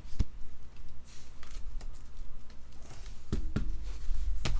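Trading cards and card packs being handled on a table: a few soft taps and clicks, over a low steady hum.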